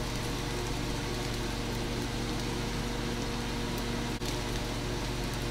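Diced onions sizzling in oil in a nonstick frying pan, a steady hiss, over a steady low hum. The sound drops out for an instant about four seconds in.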